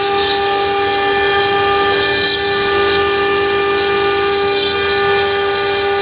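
5.5 kW water-cooled CNC router spindle engraving a groove into a stone slab: a loud, steady whine made of several held tones over a gritty cutting noise, the tones shifting slightly as the bit moves along the cut.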